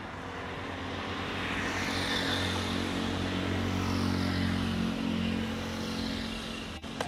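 A Boeing 737-800 airliner's twin CFM56 jet engines at takeoff power as it lifts off and climbs away. The noise grows louder to a peak about four seconds in, then eases a little: a steady low drone under a rushing hiss that slides down in pitch. There is a brief click near the end.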